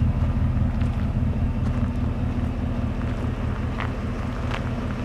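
A Ford SVT Raptor's 6.2-litre V8 idling with a steady low exhaust rumble. There are a few faint crunches from footsteps on gravel.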